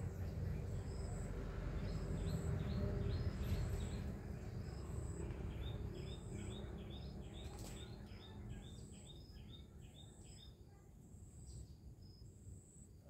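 A bird calls a quick run of short, falling chirps, about three a second, for a few seconds near the middle, over a high note repeating about once a second and a low rumble that fades away.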